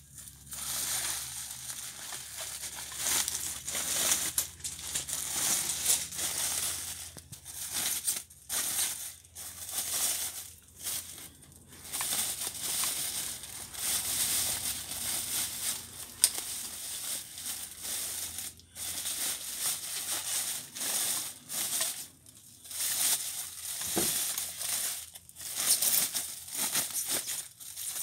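Thin plastic wrapping crinkling and rustling as it is pulled and bunched off an electric guitar. It comes in irregular bursts with short pauses, and there is a sharp click about sixteen seconds in.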